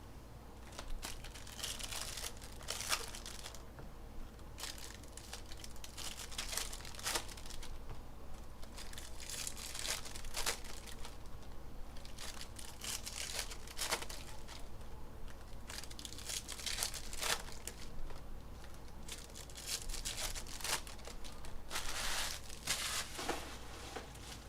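Plastic wrapping on 2021 Bowman Baseball jumbo card packs being torn open and crinkled, in repeated short bursts.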